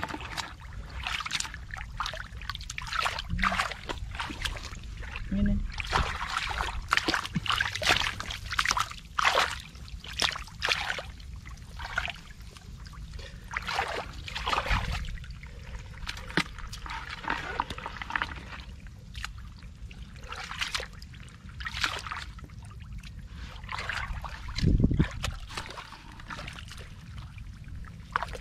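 Hands splashing and sloshing through shallow muddy water in irregular scoops, with a dull low thump a few seconds before the end.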